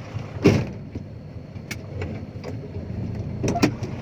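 Dump truck engine running steadily with a low rumble, with a sharp knock about half a second in and a few lighter clicks and rattles after it, two close together near the end.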